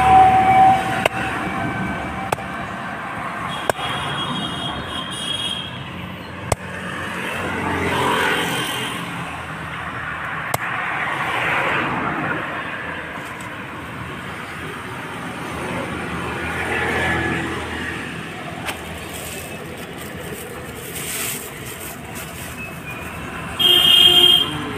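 Road traffic passing: vehicle noise swells and fades every few seconds. A horn honks at the start and again, loudest, near the end. A few sharp ticks are scattered through.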